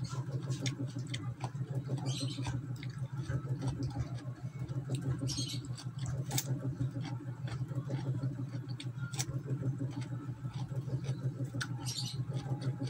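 Close-miked chewing of crisp raw cucumber, with sharp crunches every few seconds, over a steady low hum.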